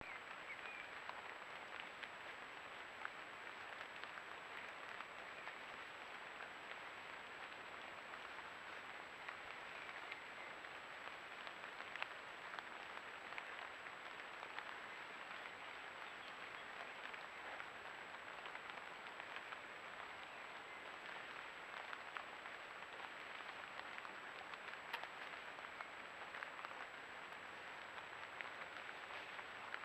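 Steady rain pattering on leaves and ground, with scattered single drops ticking sharply, and a thin steady high tone beneath it.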